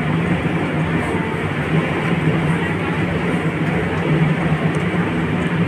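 Concrete-pouring machinery running steadily: a constant low engine hum with a rough mechanical wash over it.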